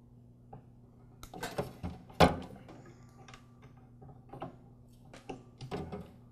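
Hand wire strippers clicking and snapping as insulation is stripped from the ends of the saw's switch wires, with light knocks of the tool and wires against the plastic handle housing. The clicks come in two clusters, the loudest a single sharp snap about two seconds in.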